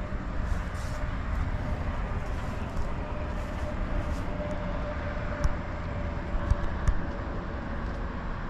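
Steady low rumble and hiss of background noise, with a faint wavering hum through the middle and a few sharp clicks about five and a half to seven seconds in.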